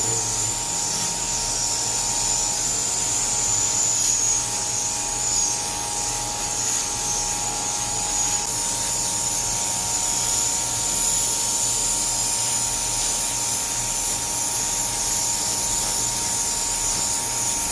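Electric high-pressure water-jet washer running steadily with a constant high whine and the hiss of the spray, as an air conditioner is washed.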